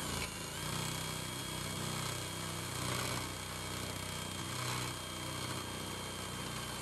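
Electric drill running steadily with a high whine, its twist bit boring a pilot hole through the wall of a copper pipe.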